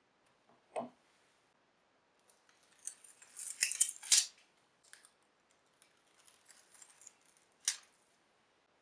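Hand-tool work at a bench: sharp clicks and snips with scratchy scraping between them. One low knock comes about a second in, the busiest, loudest run of clicks comes around the middle, and a single sharp click comes near the end.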